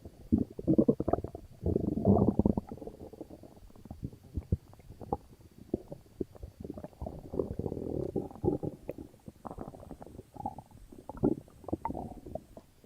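Upset stomach gurgling and rumbling: irregular bursts of bubbly gurgles with short pops between them, loudest in the first few seconds and again past the middle.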